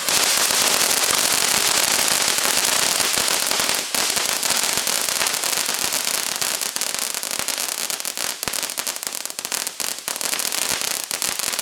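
TNT Fireworks Open Range ground fountain burning with a steady loud hiss of spraying sparks. From about four seconds in, crackling pops build up and grow dense toward the end.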